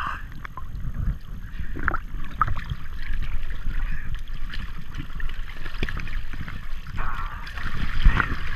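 River water rushing and gurgling around a raft, with low rumbling wind noise on the microphone; faint voices come in near the end.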